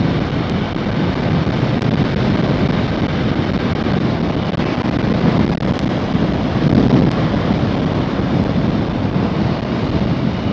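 Wind buffeting the microphone of a helmet-mounted phone on a moving motorcycle: a loud, steady, rumbling rush that is heaviest in the low range, with the ride's road and engine noise under it.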